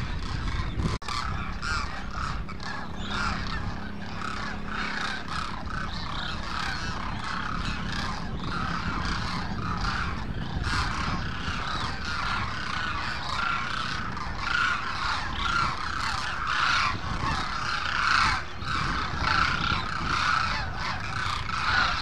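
A large flock of demoiselle cranes calling together: a dense, continuous chorus of many overlapping honking calls that grows louder in the second half.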